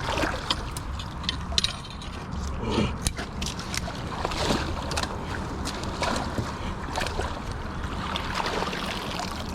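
Creek water sloshing and splashing as a dip net is jabbed and scraped up under the bank, with irregular knocks and clicks of rocks and debris caught in the net.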